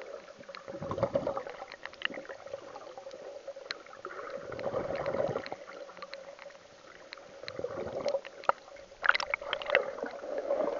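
Muffled underwater sound from a camera submerged in shallow sea water: swells of low sloshing rumble as the camera moves through the water, scattered sharp clicks and crackles, and a steady low hum. A cluster of louder clicks comes about nine seconds in.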